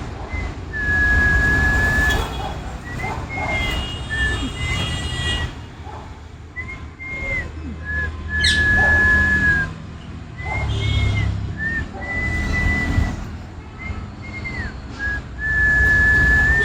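A parrot whistling the same short phrase three times: a few quick notes, then a long held note. A low rumble runs underneath.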